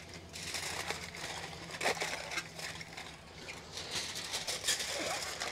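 Aluminum foil crinkling and rustling as gloved hands fold it over a roast, a string of irregular crackles.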